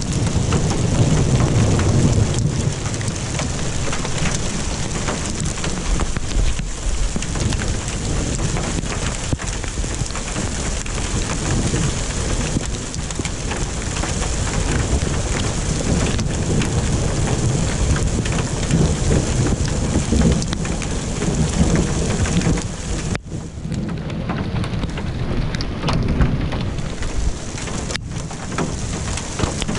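Steady heavy rain falling, with low thunder rumbling beneath it, strongest about a second or two in.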